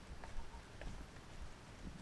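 Footsteps on a wet asphalt road, with scattered raindrops ticking around them.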